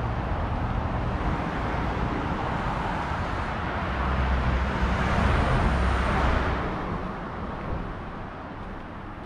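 Street traffic: a vehicle passes close by, its tyre and engine noise swelling to a peak about five to six seconds in and then fading, over a steady low traffic rumble.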